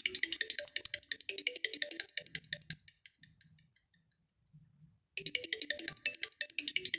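Alcatel Pixi 3 (4) phone ringtones: a fast electronic tune of short, clicky notes fades out about three seconds in, and after a short near-silent gap another ringtone starts abruptly about five seconds in.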